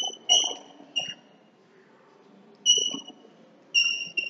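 Chalk squeaking on a blackboard while writing: about six short, high squeaks of a steady pitch at irregular intervals, with faint taps of the chalk against the board.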